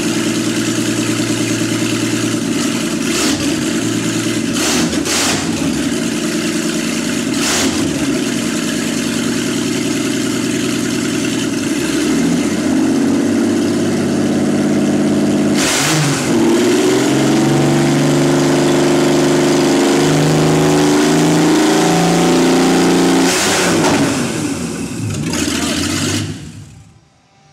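Jaguar XJS V12 running on open exhaust, its downpipes removed so it exhausts straight from the manifolds, unmuffled. It idles steadily for about twelve seconds, is then revved several times, and is shut off near the end.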